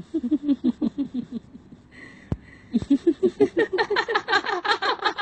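Eerie laughter from a ghost: a fast run of repeated 'ha-ha' pulses, a short pause with two dull knocks, then a second, higher and louder run of laughter.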